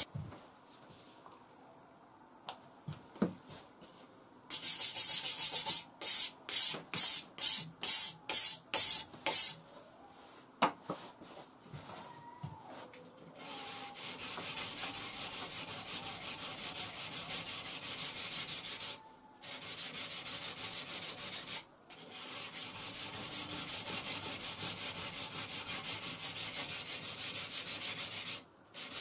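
A puukko knife blade stroked along a worn abrasive grinder belt clamped to plywood, sharpening a zero scandi grind. After a few seconds of handling clicks come about eight loud, even rasping strokes, about two a second. Then, after a short pause, a long run of quicker, quieter rubbing strokes with two brief breaks.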